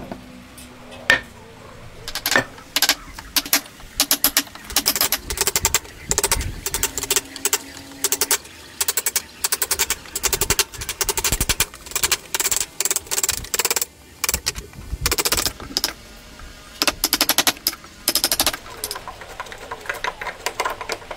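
Wood chisel cutting a mortise into a timber: bursts of quick, sharp knocks and cracks as the chisel chops and levers out chips of wood.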